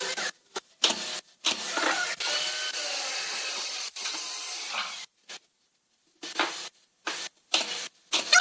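A pneumatic brad nailer fires several short sharp shots into pine slats in the second half, the loudest near the end. Earlier there is a continuous noisy sound lasting about three seconds while the slats are handled and pressed into place.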